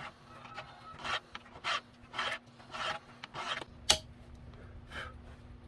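Hand file rasping on a grinder in slow strokes, about five of them a little over half a second apart. A sharp click comes partway through, then one last stroke.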